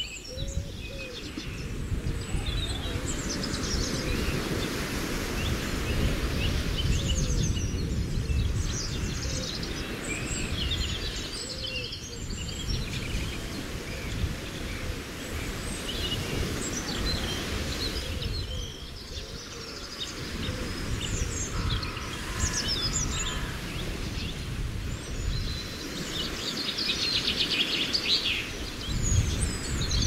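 Birds chirping and calling in scattered short trills over a steady low wash of lake water.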